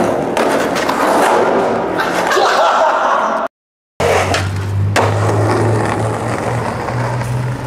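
Skateboard wheels rolling and scraping with clacks of the board. After a cut about four seconds in, a board rolls on concrete, with a sharp pop about a second later and a steady low hum underneath.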